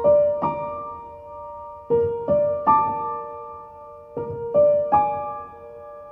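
Background music: a slow, gentle piano melody, single notes and small groups of notes struck and left to ring out.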